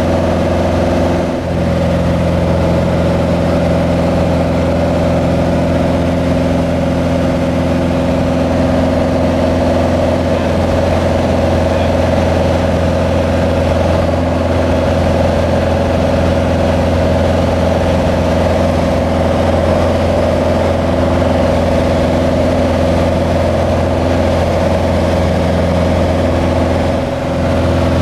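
Cessna 185 Skywagon's piston engine and propeller running steadily in cruising flight, a constant loud drone heard inside the small plane's cabin.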